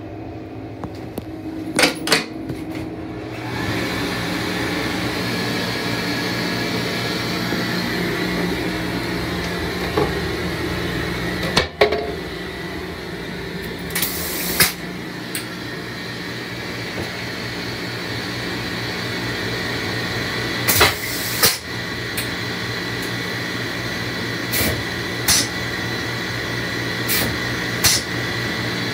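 NOVA push-button warm-air hand dryer: a couple of clicks about two seconds in, then the blower starts and runs with a steady hum and whine. Short sharp knocks come at intervals over it.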